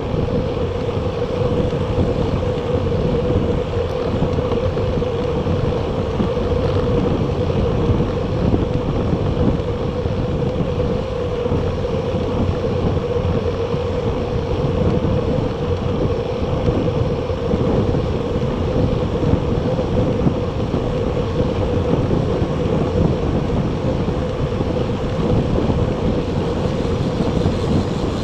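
Steady wind rush on the microphone of an action camera riding along on a moving recumbent bicycle, with a constant hum running underneath.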